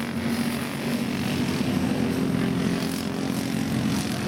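A pack of Briggs & Stratton Animal single-cylinder four-stroke kart engines running flat out in a race, a steady buzzing drone from several engines at once.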